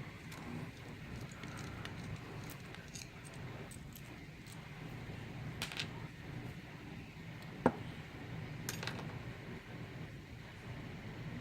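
Small metal clicks and clinks from a Federal Model 90 padlock's parts being handled as the lock is taken apart, scattered and irregular, with the sharpest click a little past halfway.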